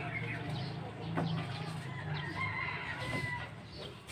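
A rooster crowing once, one held call of about a second and a half.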